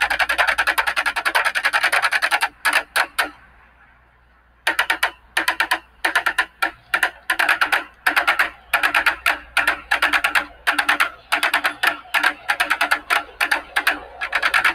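A group of drummers playing upside-down plastic buckets with drumsticks. A fast, dense roll of strokes breaks into a few separate hits, stops for about a second, then resumes as a tight rhythmic pattern of clustered strokes.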